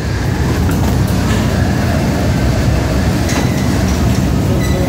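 Steady, loud, low rumble of boning-room machinery in a meat plant, with a few faint knocks and clatter from work at the steel table.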